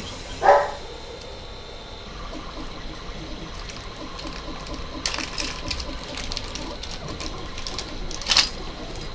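Small camera accessories and their plastic packaging being handled: rustling and crinkling with small clicks, loudest in a crackle near the end.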